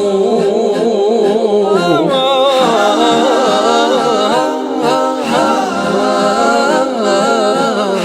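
Unaccompanied Arabic devotional song (nasheed): voices singing a long, wavering, ornamented melody with no instruments.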